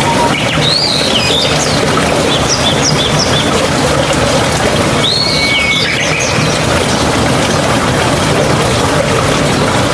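Steady rushing water of a mountain stream, with birds chirping over it in two short bursts of calls, one about a second in and one about five seconds in.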